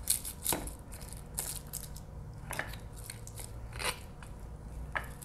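A metal spoon stirring and scraping rice and marinade inside a crab shell in a ceramic bowl: irregular wet scrapes and light clicks of the spoon against shell and bowl.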